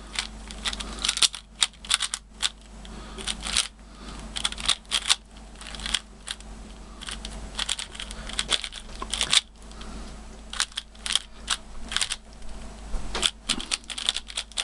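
QiYi Valk3 3x3 speed cube being turned quickly by hand: its plastic layers click in fast runs with short pauses between. A quite soft turning sound.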